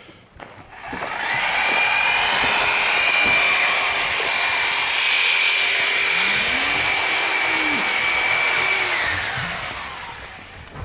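A power tool's motor spins up, runs steadily with a high whine for about eight seconds, then winds down.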